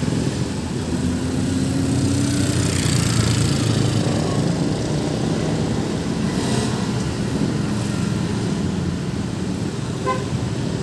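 A sleeper bus's diesel engine pulls past in steady road traffic, its engine note rising a little about a second in. A short horn beep sounds near the end.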